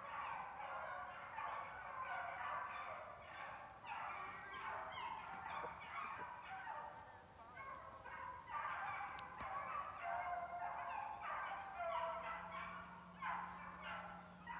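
A pack of rabbit hounds in full cry, many overlapping yelping voices baying in chorus as they run a rabbit's scent trail. The chorus eases a little just past halfway, then comes back louder.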